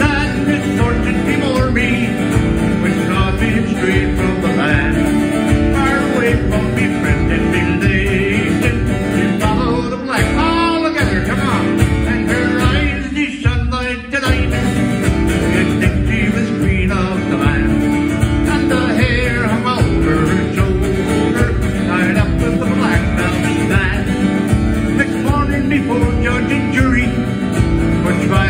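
Acoustic guitar strummed in a steady rhythm, with a man singing a folk ballad over it.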